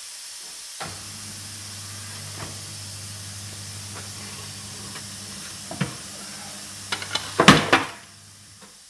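Tyre changer machine running with a steady electric motor hum while a tyre is worked on a split-rim wheel, under a high hiss, with a few single clicks and a cluster of loud sharp clacks near the end; the motor hum stops just before the end.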